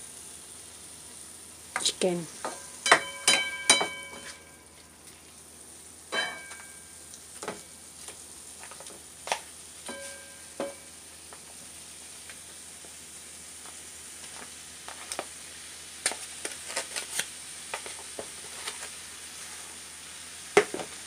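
Raw chicken pieces sizzling in a hot frying pan of sautéed onion and tomato, under a steady hiss of frying, while a plastic spatula stirs and scrapes, making many short clacks and knocks against the pan.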